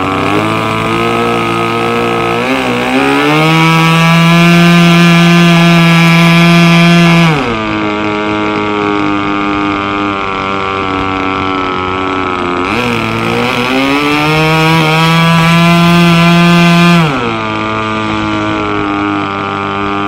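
Nitro glow engine of a Seagull Boomerang V2 RC trainer plane idling, then run up to full throttle twice, each time held for about four seconds before dropping back to idle. This is a test of its throttle response, with the bottom-end needle valve just wound in half a turn because the engine had been sluggish going from idle to full throttle.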